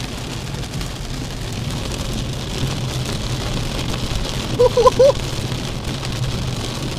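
Heavy rain falling on a car's roof and windscreen, heard from inside the cabin over the car's low steady hum. A brief wavering voice sound cuts in about four and a half seconds in.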